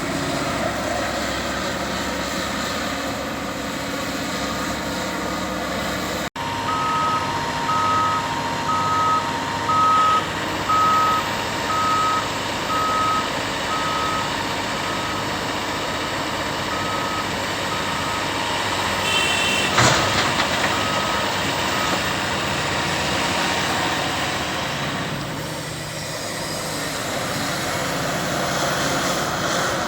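Heavy earthmoving machinery running, with a back-up alarm beeping about once a second through much of the clip and a single sharp clank about two-thirds of the way through. The sound cuts out for a moment about six seconds in.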